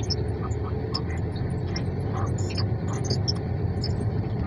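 Steady low rumble inside a stationary car's cabin, with faint scattered high-pitched ticks.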